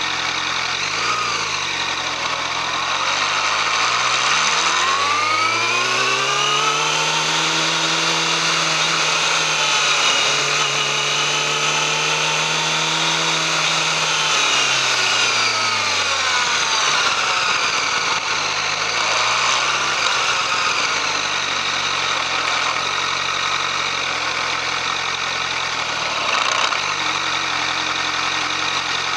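Yamaha YZF-R6's inline-four engine, on its stock exhaust, revving. A short blip about a second in, then the revs climb and hold high and steady for several seconds before falling back to idle. Another brief blip comes around two-thirds of the way through, and it settles into a steady idle.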